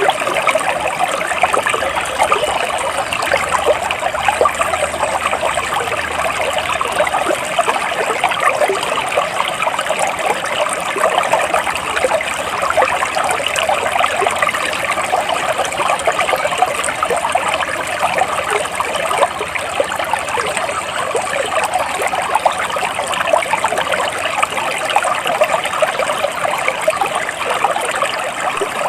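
Flowing water trickling and babbling steadily, a dense splashy rush with no change in level.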